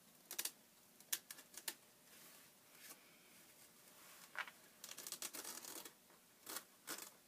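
Faint scattered ticks and scratches of cutting through the glued mull and paper along an old book's spine hinge, with a quick run of ticks about five seconds in.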